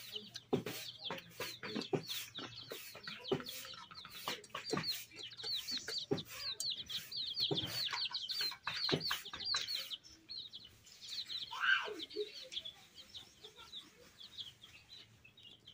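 Small birds chirping rapidly and steadily, with light clicks and taps of hands and food against steel plates and bowls. One louder falling call comes late on.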